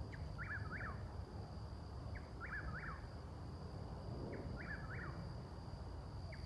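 Eastern whip-poor-will singing its three-part whistled 'whip-poor-will' song, repeated about every two seconds: three full phrases, with a fourth starting near the end. A thin steady high tone runs underneath.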